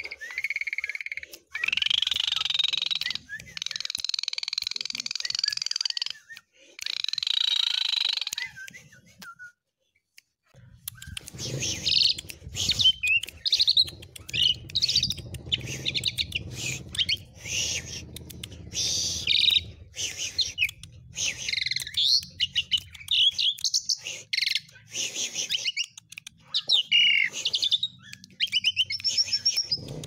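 Asian pied starling singing: first a few long held high notes of a second or two each, then, after a short pause, a fast, varied run of clicks and quick whistled notes. The song is filled with mimicked sounds.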